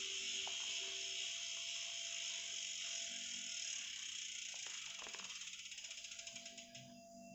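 Rear freehub of a Hotop folding bike ticking as the spinning rear wheel coasts: a fast buzzing ratchet that slows into separate clicks and stops near the end, with a couple of light knocks along the way.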